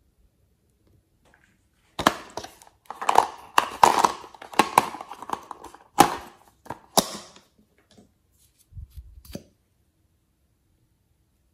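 A hard plastic toy case being handled and clicked open and shut: a run of sharp plastic clicks, snaps and rattling, starting about two seconds in and dying away near nine seconds, with the loudest snaps about six and seven seconds in.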